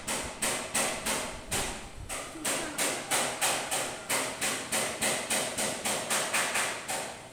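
An even series of sharp knocks, about three a second, that stops shortly before the end.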